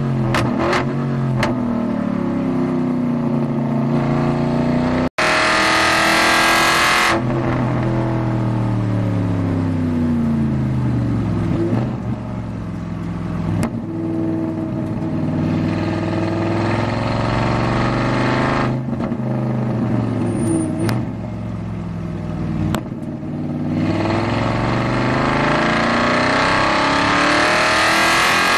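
Aston Martin Vantage GT4's V8 engine heard from inside the cockpit at racing speed. Its pitch falls in steps through downshifts as the car brakes for a slow corner, then climbs again through the gears as it accelerates out near the end.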